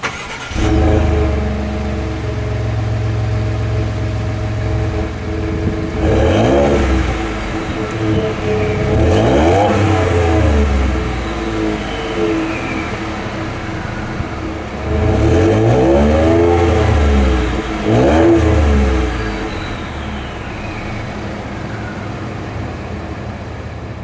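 Ford F-150's twin-turbo EcoBoost V6 warm-started and heard at the exhaust tip: it catches just after the start and settles into a steady idle. It is then revved several times, the pitch rising and falling with each blip, the last two close together, before it drops back to idle.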